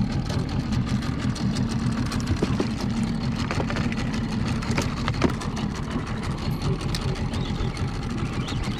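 Small boat outboard motor running steadily at low idle, with a fast even pulsing beat, kept running to hold the boat over a school of fish. A few light clicks sound over it.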